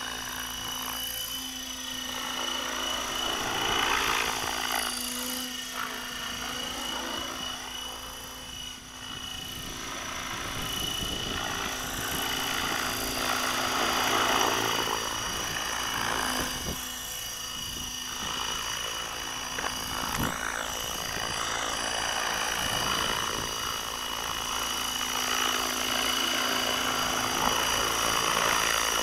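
Electric HK600GT 600-class RC helicopter in flight: a steady high whine from the electric motor and drive over the whoosh of the rotor blades. The sound swells and fades as the helicopter moves nearer and farther.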